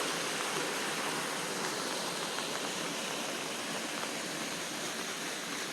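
Water rushing steadily out of a retention pond's outflow after heavy rain, a constant even flow.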